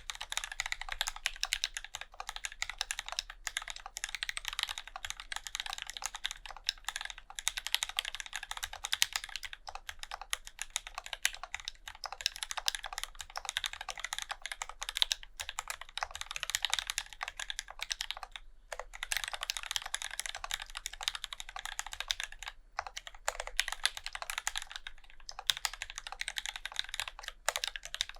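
Continuous fast typing on an acrylic-cased Alice-layout mechanical keyboard with lubed Gateron Black Ink linear switches and SA-profile keycaps, dense keystrokes with a few brief pauses.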